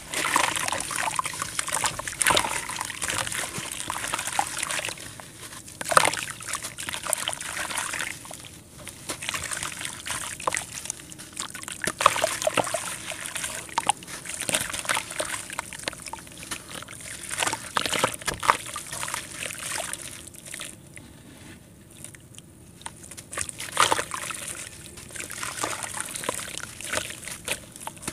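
Hands crumbling gritty red dirt into a basin of muddy water: crunching and trickling as the grains fall in, with sloshing and splashing as the wet clay paste is squeezed. Sharp crunches stand out every few seconds, with a quieter spell about twenty seconds in.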